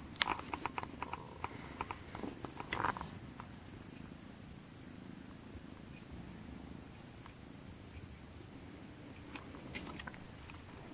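Norwegian Forest Cat kitten purring, a steady low rumble. A quick run of clicks and taps comes in the first three seconds, and a few more near the end.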